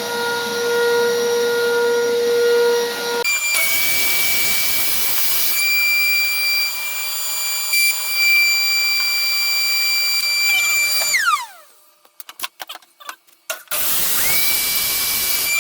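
Shop vacuum running, then a power saw's motor starting about 3 s in with a high steady whine, cutting briefly, and spinning down about 11 s in. After a short pause with a few clicks the saw starts again near the end, with the vacuum hooked to it for dust collection.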